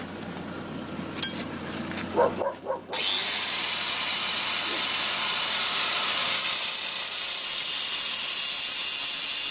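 Angle grinder spinning up about three seconds in, then running steadily against the edge of a turning car brake disc, grinding off the worn lip at its rim. Before it, a quieter stretch with a single sharp click.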